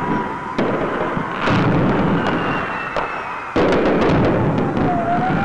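Several sudden, loud explosion-like blasts at uneven spacing, over a siren wailing up and down in pitch.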